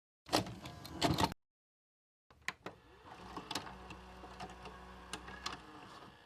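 Two short noisy swooshes, then a few sharp clicks and a soft mechanical whirring dotted with clicks, the sound of a VCR loading and playing a VHS tape.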